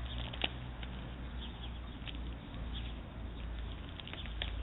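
A dog licking and chewing at a plastic sour cream packet pinned under its paw, the plastic crinkling in small irregular crackles, with one sharper click about half a second in. A steady low rumble runs underneath.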